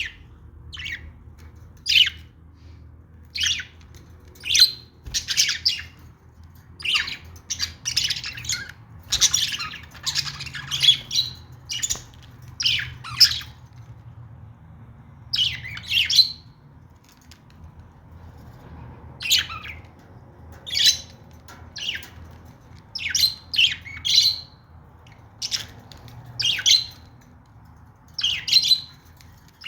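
Pet budgerigars chirping and squawking in short, sharp calls, one every second or so, with a lull of a few seconds a little past halfway.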